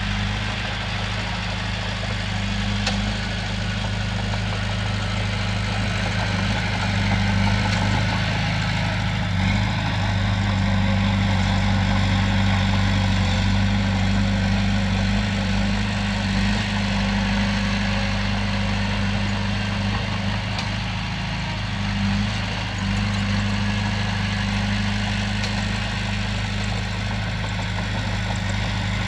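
Komatsu bulldozer's diesel engine running steadily, a deep, even drone that gets slightly louder for a while in the middle.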